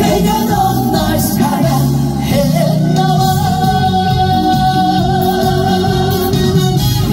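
A live trot song played loud over a PA: a male singer over band accompaniment, holding one long note for about three seconds midway.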